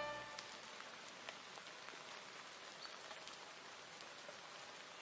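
The last note of the soundtrack music dies away just after the start, leaving a faint, steady hiss with a few scattered small ticks.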